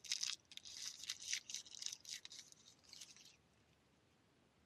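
A small wrapper being rustled and crinkled by fingers as a coin is taken out of it, in a quick run of scratchy rustles for about three seconds.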